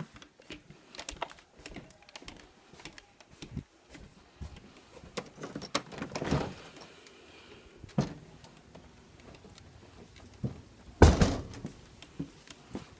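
Scattered knocks and clicks of someone moving about with a phone, a door being opened about six seconds in, and a loud thump about eleven seconds in.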